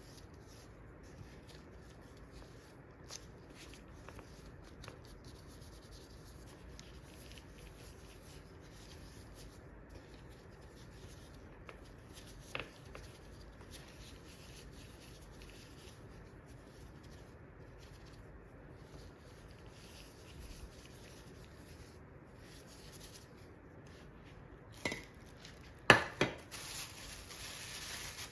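Quiet kitchen handling sounds of food preparation: soft rubbing and light taps, with a single click about halfway through. Near the end come a few sharp knocks, then a short hissing rustle.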